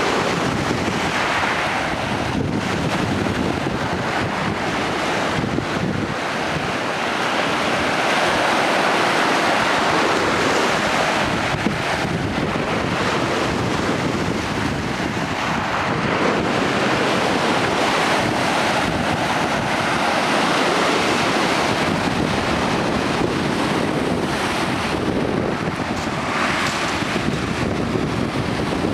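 Choppy, wind-driven Lake Superior waves breaking and washing against a rocky shore, in surges that swell and ease every several seconds, with wind buffeting the microphone.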